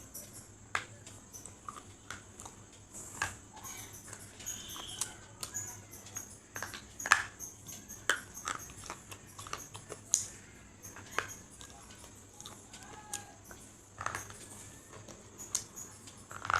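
Crunchy food being chewed: irregular sharp crunches, a few a second, over a faint steady hum.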